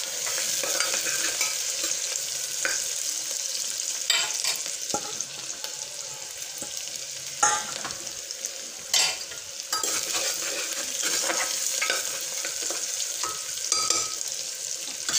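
Sliced onions sizzling in hot oil in a pressure-cooker pot as they fry toward brown. A steel ladle stirs them, knocking and scraping against the pot a few times.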